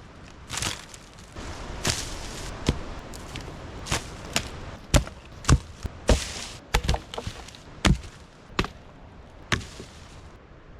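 Dry branches being snapped by stomping on them with a foot: about a dozen irregular sharp cracks and thuds, some with a brief splintering rustle.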